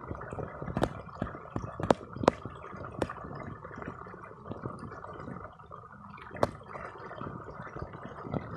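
Irrigation water flowing and gurgling along a flooded field furrow, with a few sharp clicks about one, two, three and six and a half seconds in.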